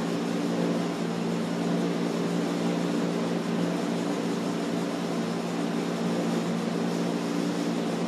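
A steady machine hum over a constant hiss, holding one even pitch with no change.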